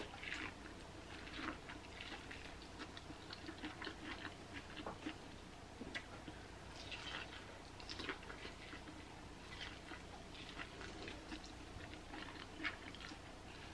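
Corn on the cob being bitten and chewed: faint, irregular wet clicks and crunches of kernels.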